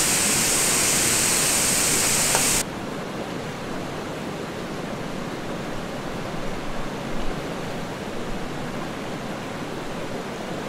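Cucur fritters deep-frying in a pan of hot oil, a loud steady sizzle that cuts off suddenly about two and a half seconds in. After that, a quieter, even rushing noise runs on.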